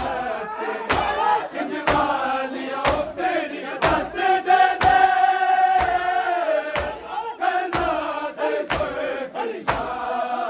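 Group of men chanting a noha, a Shia mourning lament, with a held lead melody and the crowd's voices. Under the singing, an even beat of hand strikes on the chest (matam) falls about once a second, keeping time.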